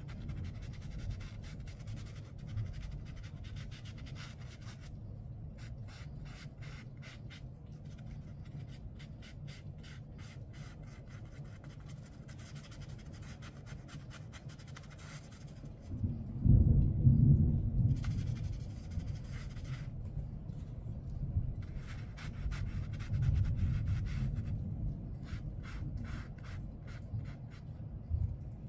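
Low rumbling of thunder from a loud thunderstorm, swelling loudest about sixteen seconds in and again more softly near the end. Over it come patches of light scratchy strokes from a paintbrush on watercolor paper.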